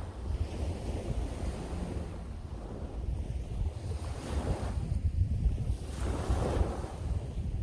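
Sea waves breaking and washing up the shore, with strong wind buffeting the microphone as a steady low rumble. A wash of surf swells about four seconds in and again a couple of seconds later.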